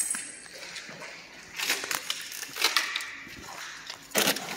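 Footsteps crunching over grit and broken plaster debris on a hard floor: a few uneven steps, the loudest near the end.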